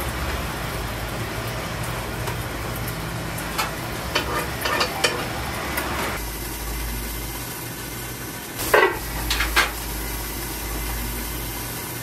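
Kitchen noise: a steady sizzling hiss with scattered small clicks and clatter, and two louder knocks about nine seconds in.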